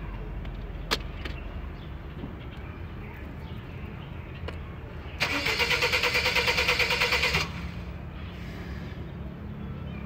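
Car's starter motor cranking the engine, an even rapid pulsing of about seven beats a second, for about two seconds before it cuts off. A single sharp click comes about a second in.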